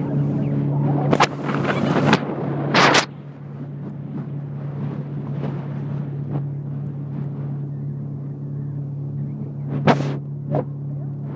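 Motorboat engine running at a steady pitch, with two loud rushes of noise in the first three seconds and a few short sharp knocks near the end.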